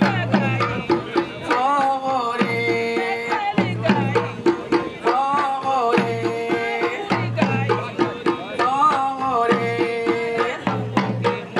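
A woman singing into a microphone over drum accompaniment: long, wavering sung phrases that repeat every couple of seconds, with regular drum strokes and a steady held note underneath.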